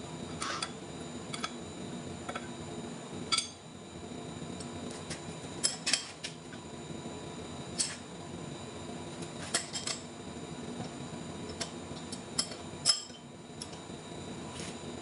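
Scattered sharp metal clinks of a wrench and hand tools against the steel jaws of a large lathe faceplate as a heavy flange is clamped and trued, the two loudest about three seconds in and near the end, over a steady low hum.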